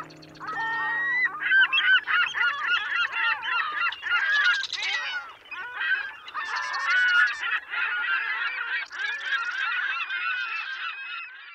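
A flock of birds calling all together: many short overlapping calls, each rising and falling in pitch, with brief stretches of fast chatter. Background music fades out in the first half-second.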